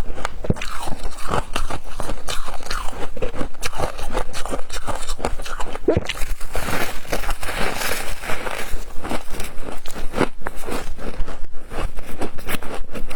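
A person biting and chewing flavoured frost close to the microphone: a dense, continuous run of crisp crunches, thickest about halfway through.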